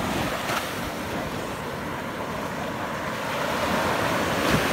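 Small sea waves breaking and washing up a sandy beach, with wind gusting on the microphone. The surf swells louder near the end.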